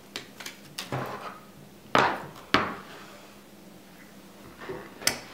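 Metal food cans knocking on a wooden tabletop as they are moved and set down: a few light knocks, then two sharp knocks about two seconds in, half a second apart.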